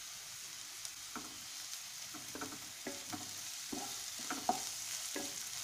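Chopped onions and ginger paste frying in oil in a non-stick kadai with a steady sizzle, while a spatula stirs and scrapes them in short, irregular strokes.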